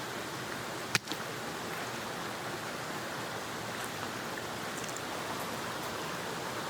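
Steady rushing of a mountain stream, with one sharp click about a second in.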